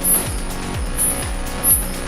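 Background electronic music with a steady kick-drum beat, about three beats a second.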